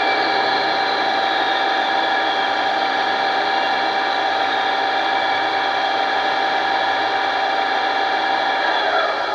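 G-scale model of a Rhaetian Railway Ge 6/6 electric locomotive running, its ESU sound decoder playing a steady electric-locomotive whine over the whir of the model's drive gears. Near the end the whine drops in pitch and the sound fades.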